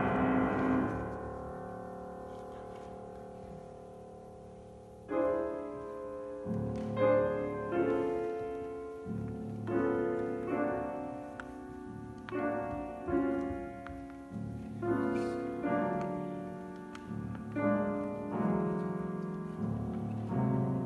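Seiler grand piano played solo: a loud chord dies away over the first five seconds. Then come a string of quieter, separate chords and bass notes, about one or two a second.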